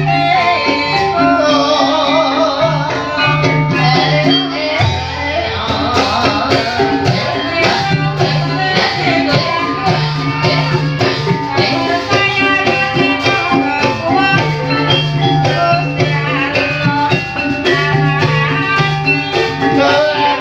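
Live ebeg accompaniment music: an ensemble of pitched instruments and drums playing steadily with regular percussion strokes, a wavering singing voice over it.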